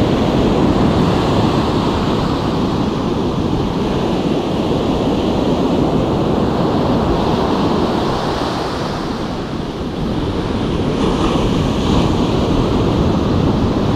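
Ocean surf breaking and washing up over the sand in a continuous rush.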